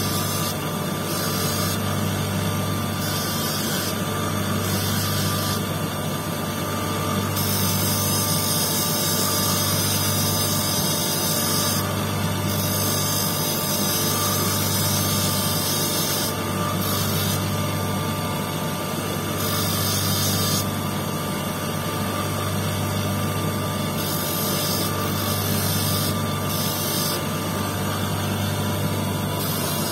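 Electric motor running a spinning lapidary wheel with a steady low hum, while a quartz stone held on a dop stick is ground against the disc. A high hiss comes and goes in stretches of a few seconds as the stone is pressed on and eased off.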